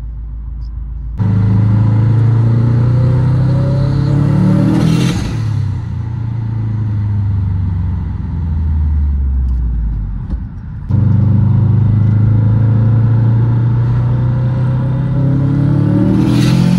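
Big-turbo Subaru WRX's turbocharged flat-four engine making two hard pulls: after about a second the engine note jumps and climbs steadily through the revs, then ends in a short rush of noise as the throttle lifts. The revs fall away before a second pull climbs the same way and ends in another rush of noise near the end.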